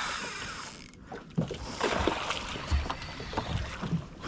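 Okuma fishing reel being wound in under the load of a hooked roosterfish, with irregular clicks and knocks, and water lapping against a small boat's hull. A steady hiss stops about a second in.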